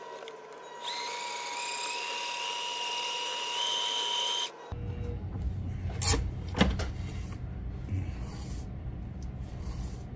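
Small electric line-spooling motor whirring as it winds hollow-core braid onto a reel, its pitch stepping up as it gathers speed. It cuts off about halfway through, and a lower, rough rumble follows as the spool keeps turning, with two sharp clicks.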